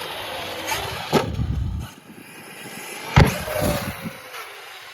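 Traxxas Sledge brushless RC monster truck being driven hard: its electric motor whines, rising and falling, with sharp knocks of the truck hitting the ground about a second in and again, loudest, about three seconds in.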